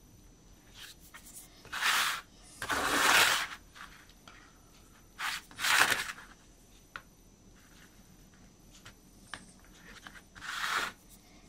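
Five short rubbing and scraping noises as fingers wipe excess thin superglue off laser-cut MDF wagon frames around the fitted ball races; the two near 3 and 6 seconds are the loudest.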